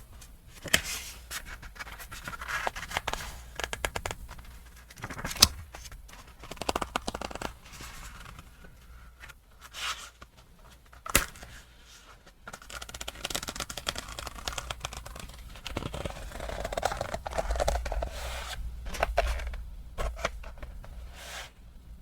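Close-up handling of leather goods and their packaging: irregular rustling and scraping, with a few sharp clicks, the loudest about five and eleven seconds in.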